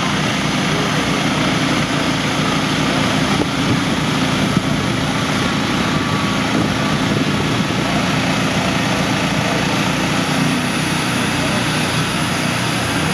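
Norwood Frontier OS-27 manual bandsaw mill running under load, its engine holding a steady drone while the band blade saws lengthwise through a log.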